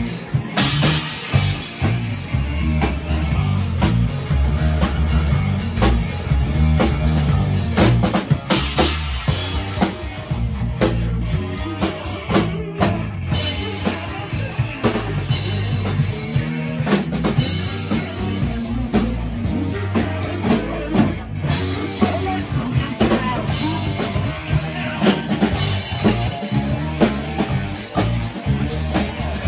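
Rock band playing live with electric guitars, bass guitar and a drum kit, in an instrumental stretch with no singing and steady, loud drums.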